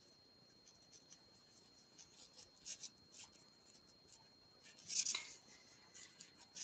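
Faint rustling of yarn being worked with a crochet hook: scattered light scrapes, with a louder rub about five seconds in, over a faint steady high whine.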